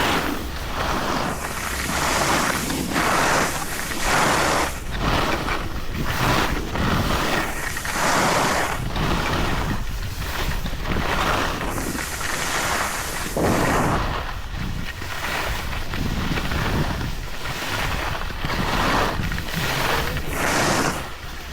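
Wind buffeting the camera's microphone during a downhill ride on snow, with the hiss and scrape of edges on the snow swelling and fading about every second or two as the rider turns.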